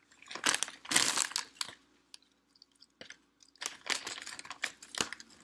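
Crackly crunching of sour cream and onion potato chips, in two stretches: one from about half a second in lasting a little over a second, and another from about three and a half seconds in.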